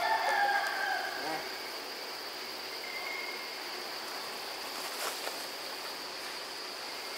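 Insects droning steadily in one high-pitched band, with a brief pitched call or voice in the first second or so.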